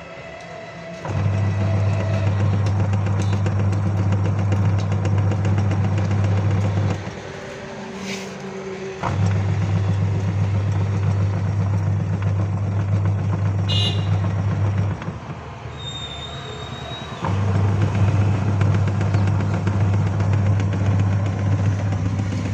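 Semi-automatic washing machine's wash motor driving the pulsator through the repaired gearbox: a steady hum for about six seconds, a pause of about two seconds, then running again, in the stop-and-start rhythm of the wash cycle. No noise comes from the gearbox, the sign that the repair has cured it.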